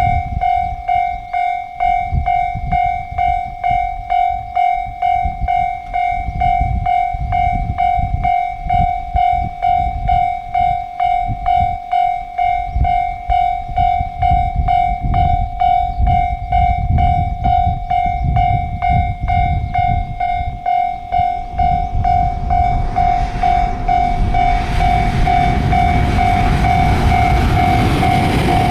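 Level-crossing warning bell ringing, a repeated electronic ding at about two a second. Under it a train's rumble builds, and from about 23 seconds in the noise of the passing train swells to cover much of the bell.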